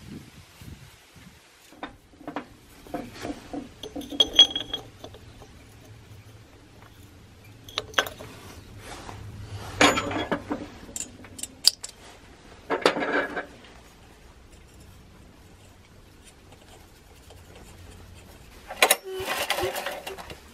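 Metal parts and tools clinking and clattering in short, irregular bursts, with sharp knocks in between. Near the end a louder, rougher rattling starts up.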